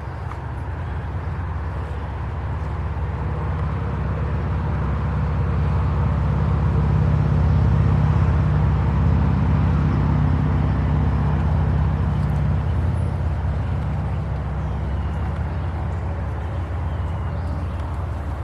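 A motor engine passing with a low, steady hum, growing louder for about eight seconds and then slowly fading.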